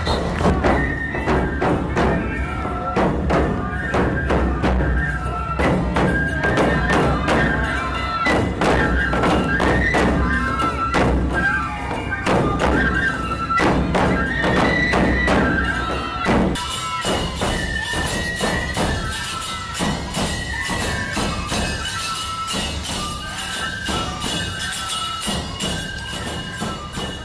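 Nebuta festival music: large taiko drums beating steadily under a high flute melody that repeats short phrases. The heavy drumming thins out about two-thirds of the way through.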